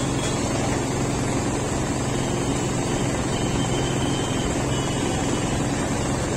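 Steady mechanical background noise: a constant low hum with an even hiss over it.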